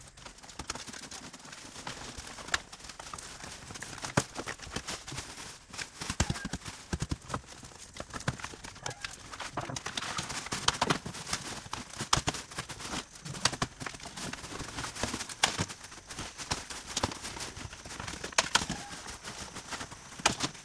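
Irregular clacking and knocking: many short, sharp impacts at an uneven pace, some louder than others.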